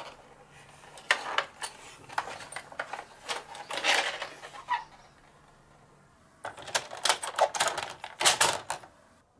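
Plastic toy bus being handled: its body and wheels click and rattle in hand. After a quieter spell of a second or so, a quick, dense run of clicks comes as the red button on its roof is pressed.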